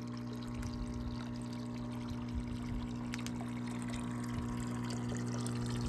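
Small garden fountain: a thin stream of water pouring from a spout into a water-filled basin, splashing steadily, over a steady low hum.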